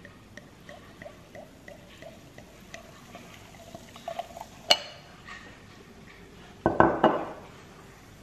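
Sparkling wine poured from a glass bottle into a wine glass, fizzing with faint small clinks. About four and a half seconds in there is one sharp glass clink, and near the end a louder clunk as the bottle is set down on a granite countertop.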